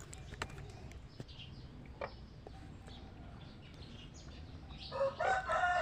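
Night chorus of frogs and insects after rain: scattered short chirps and clicks over a low steady hum, with a louder, drawn-out pitched call about five seconds in.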